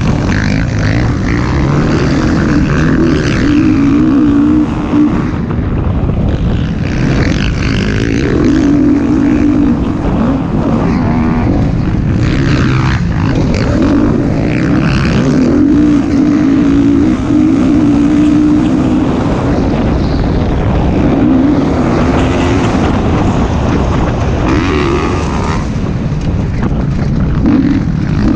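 Onboard sound of a motocross dirt bike engine running hard around a dirt track, its pitch rising and falling every few seconds as the throttle opens and closes through corners and straights.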